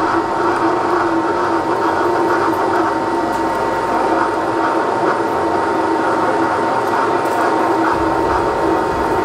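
Milling machine drilling a hole through a 4140 alloy steel plate with a large twist drill: the spindle runs steadily with a constant tone over the even noise of the drill cutting.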